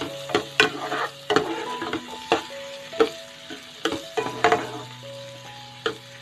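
Plastic spoon stirring onion, garlic and ginger sizzling in butter in a nonstick pan, with irregular sharp scrapes and knocks of the spoon against the pan over a steady sizzle.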